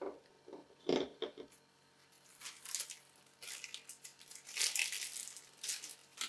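A small plastic bag crinkling in a series of short rustles as a hand rummages in it, after a single knock about a second in.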